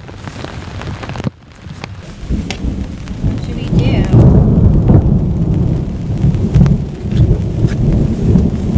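Thunder rolling in from about two seconds in and swelling into a long, low rumble over steady rain pattering on a tarp.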